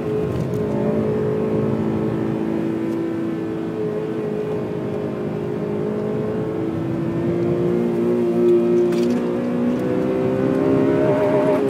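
Honda Civic Type R FN2's 2.0-litre four-cylinder i-VTEC engine pulling under load on a wet track, its note held fairly steady, then climbing gradually in pitch over the last few seconds.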